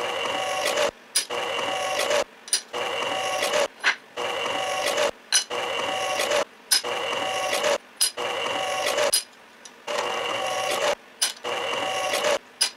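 Drill press running with a twist bit cutting into aluminum angle: a steady motor whine with a cutting noise. It cuts out briefly and abruptly about every second and a half.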